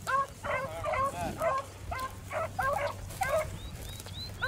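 A brace of beagle hounds baying in quick, repeated calls as they run a rabbit's track.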